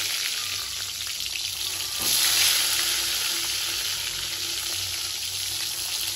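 Small whole eggplants, rubbed with turmeric and salt, sizzling in hot mustard oil in a wok. The sizzle swells about two seconds in as another eggplant goes into the oil.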